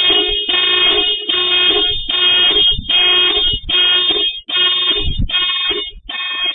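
Horn sounding in an evenly repeated series of long blasts, a little over one a second, the on-off pattern of an alarm.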